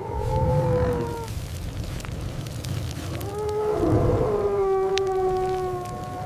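Wolf howls: a short howl of about a second near the start, then a longer, slightly falling howl from about three seconds in, over a low rumble.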